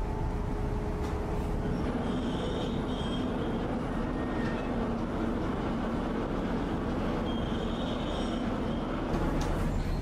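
Steady low mechanical rumble of a car ferry coming in to berth, with a high metallic squeal twice, about two and seven seconds in.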